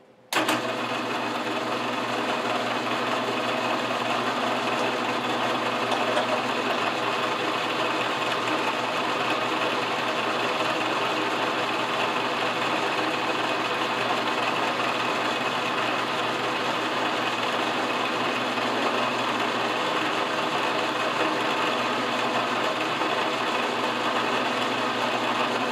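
Milling machine spindle running steadily with a center drill chucked in it, being tried as an engraving tool. The steady mechanical hum comes in abruptly just after the start and holds level throughout.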